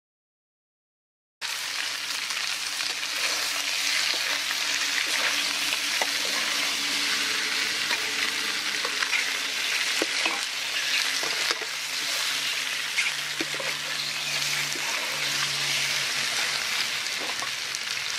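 Cubes of pig blood sizzling in hot oil with fried garlic in a steel wok, a metal spatula scraping and clicking against the pan as they are stir-fried. The sizzling starts suddenly about a second and a half in.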